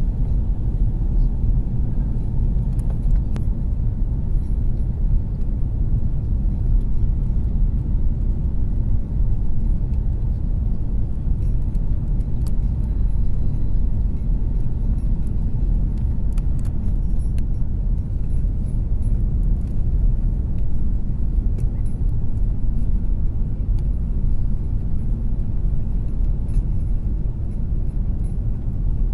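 Steady low rumble of an airliner's engines and airflow, heard from inside the passenger cabin during the descent to land.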